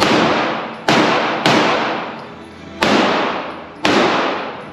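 Five pistol shots at an uneven pace, each sharp bang echoing off concrete-block walls and fading away over most of a second.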